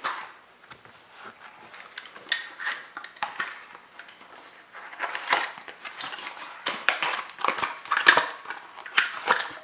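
A small cardboard box being opened by hand and a brass TIG gas regulator lifted out of it: cardboard flaps scraping and rustling, with sharp clicks and clinks, busier in the second half.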